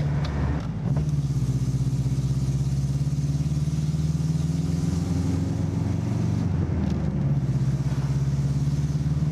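Car engine drone and road noise heard from inside the cabin while driving at steady speed. The note dips briefly about half a second in, then holds steady.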